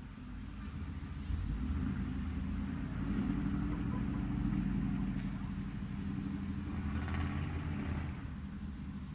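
Car engine running at low speed with a steady low rumble, a little louder from about a second in.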